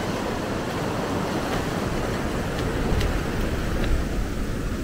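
Surf breaking on a beach with wind rumbling on the microphone, a steady wash of noise, with a few faint clicks.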